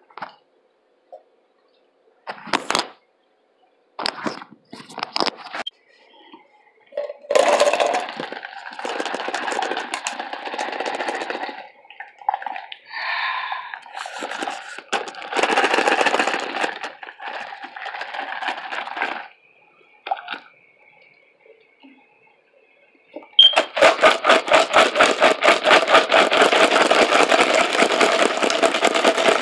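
Ice cubes rattling in a cup as it is shaken, in stretches through the middle and then steadily over the last several seconds, with a few scattered clicks of handling before.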